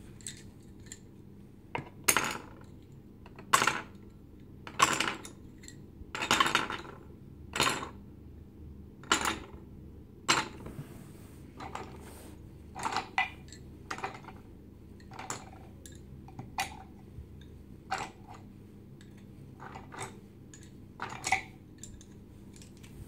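Wooden spindles of a spindle box clacking against each other and against the wooden box as they are handled and set into its compartments: a series of sharp, uneven wooden clacks, roughly one every second or so.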